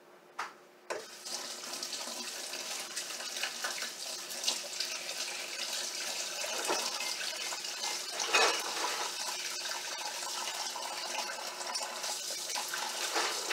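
Kitchen tap running steadily into the sink, starting about a second in, with a few light clinks.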